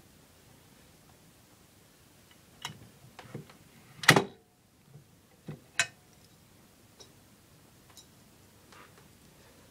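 A triangular train key worked in the lock of a Mat 64 (Plan V) train door control panel: a few sharp clicks, then a loud clack just after four seconds in, then two more clicks a little over a second later.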